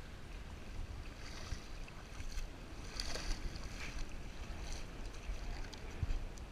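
Water splashing as a small summer flounder (fluke) is dragged through the shallows onto wet sand, with gusts of wind rumbling on the microphone.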